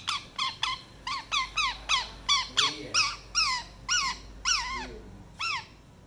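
Indian ringneck parakeet giving a fast run of short, repeated calls, about three a second, with one last call about five and a half seconds in. The calls are agitated, the parrot defending its basket from a touching hand.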